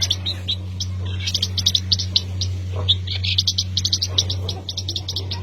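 A small bird giving rapid runs of short, high chirps, several a second, broken by brief pauses. A steady low hum runs underneath.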